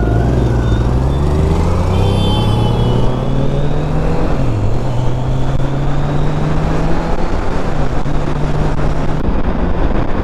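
Kawasaki Z900's inline-four engine running under way, its pitch dipping briefly twice, over a steady rush of wind and road noise.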